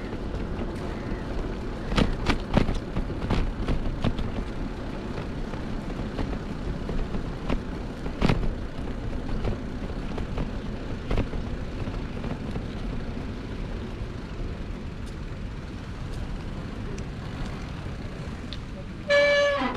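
Wind rushing over the microphone and a steady rumble from a bicycle rolling over brick paving, with scattered knocks and rattles from bumps in the bricks. Just before the end there is a brief, loud, horn-like tone that slides down in pitch as it cuts off.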